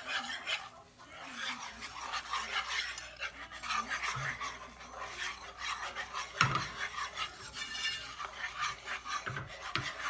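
Wire whisk stirring a thick spiced sauce in a skillet: a run of quick scraping strokes against the pan, with a louder knock of the whisk on the pan a little past the middle.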